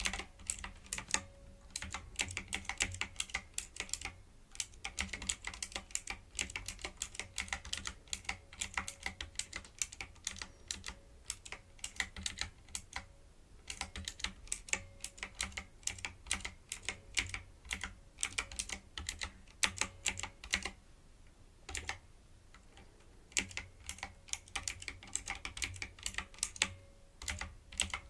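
Typing on a typewriter-style keyboard: quick runs of sharp key clicks, broken by brief pauses and a longer lull about two-thirds of the way through.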